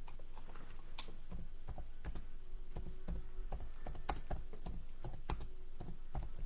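Typing on a computer keyboard: an uneven run of key clicks, some landing with a dull knock.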